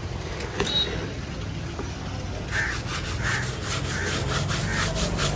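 Hand scrubbing of a tractor's rear wheel rim and tyre during a wash: rhythmic rubbing strokes, about two a second from about halfway through, over a steady low hum.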